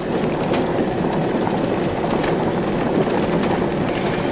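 Steady rumble of a car rolling slowly over a loose, freshly gravelled road surface, heard from inside the cabin, with a few sharp clicks along the way.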